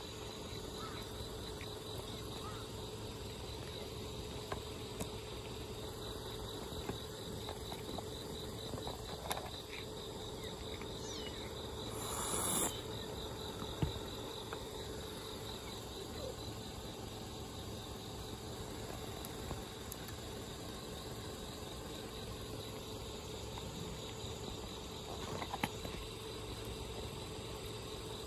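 Crickets trilling steadily, a regular pulsing chirp, with a few faint clicks from a cat crunching dry kibble close by. A brief burst of noise is the loudest moment, about 12 seconds in.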